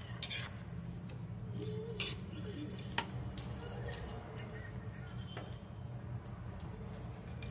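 Spatula clinking and scraping against a wok as shrimp, onion and garlic are turned in butter: scattered sharp clicks, the clearest about two and three seconds in, over a steady low hum.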